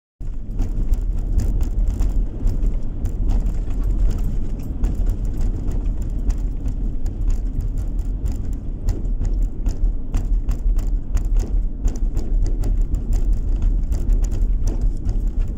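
Car cabin noise while driving at speed: a steady low rumble of tyres and engine, with frequent small ticks and knocks throughout.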